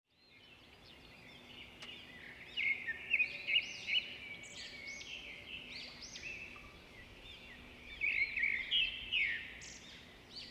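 A group of African lovebirds chirping and chattering: many short, high calls overlapping, louder about three seconds in and again near the end.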